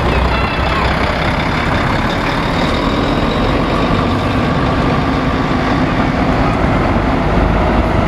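Heavy diesel engine of a Volvo FH tractor unit running at low speed as the truck pulls out and approaches, a steady low rumble that grows slightly louder near the end.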